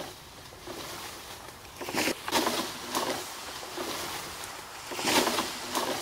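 Bull moose raking his antlers through leafy conifer branches: rustling and swishing in repeated bursts as the boughs are thrashed. The rake is a rut signal broadcast to call out rival bulls.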